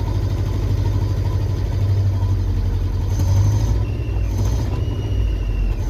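Land Rover petrol engine running rough and misfiring, heard from inside the cab; the misfire has not been cured by the recent reassembly, and it sounds pretty bad.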